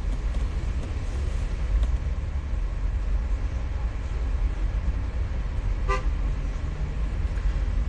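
Steady low rumble of a car's cabin in stopped traffic, with one short car horn beep about six seconds in.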